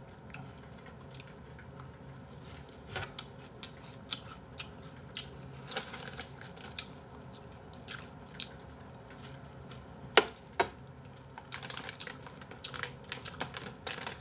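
Scattered light clicks and taps of a spoon and a crinkling plastic bag of seasoned laver flakes while eating, with a quicker run of clicks near the end.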